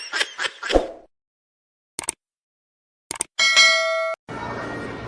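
A cartoon boing sound effect wobbling up and down and fading out in the first second. After a pause and a few clicks, a single bright bell ding rings for under a second and stops abruptly, and a steady background hubbub begins.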